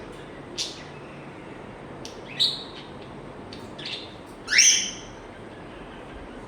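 African grey parrot giving a handful of short, high chirps and whistles, the loudest a little past the middle.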